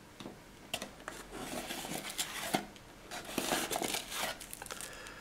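Hands rummaging inside a cardboard accessory box: cardboard and packaging rustling and scraping, with several sharp clicks, from about a second in until near the end.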